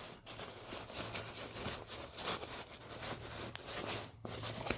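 Rustling and scraping of a backpack's nylon fabric and wire frame being flexed by hand in an attempt to make the frame creak and bang; the loud bang does not come.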